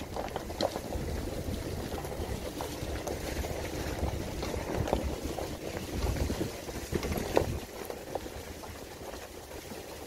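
Porsche Cayenne S driving slowly on a muddy, snow-covered dirt track: a low rumble of engine and tyres, with scattered clicks and knocks from the tyres over stones, mud and slush. It gets a little quieter after about seven and a half seconds.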